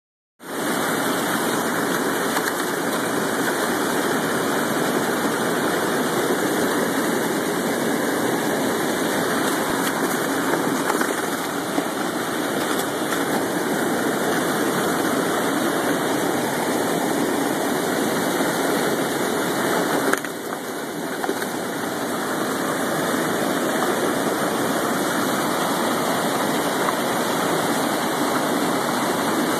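Steady rush of white water pouring over a low river dam and churning among the rocks below, a constant, even noise.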